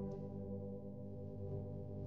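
Soft ambient background music with long, held ringing notes.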